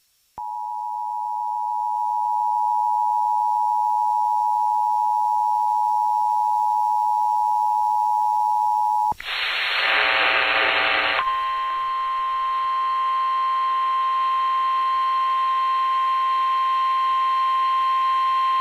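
Emergency Alert System attention signal: two steady tones sounding together just under 1 kHz for about nine seconds. It breaks off into a harsh, noisy burst of about two seconds, then a single higher, buzzy steady alert tone takes over.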